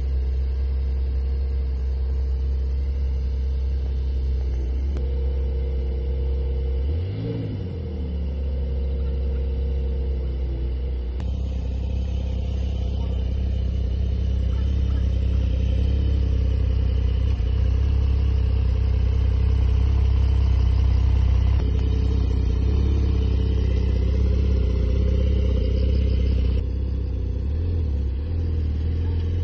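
Porsche 911 GTS (992) twin-turbo flat-six running at low revs as the car creeps across grass. It gives a brief rise and fall in revs about seven seconds in.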